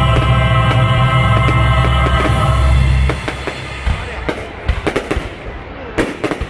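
Loud music with a heavy bass plays, then cuts off about three seconds in. Fireworks bang and crackle after it, with several sharp separate reports.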